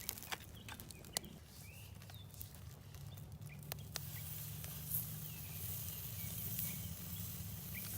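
Sharp clicks, like tongs on a grill, then beef short rib sizzling on a charcoal grill, the sizzle building from about halfway through. A low steady hum and a few faint bird chirps sit underneath.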